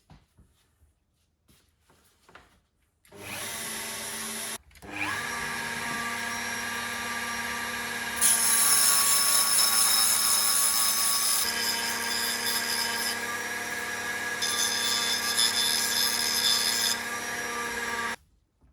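Handheld electric power tool starting about three seconds in, stopping for a moment and starting again, then running at a steady speed until it cuts off near the end. Twice it is joined for a few seconds by a harsh high hiss. This is work cleaning carbon residue off a turbocharger's VNT vane parts.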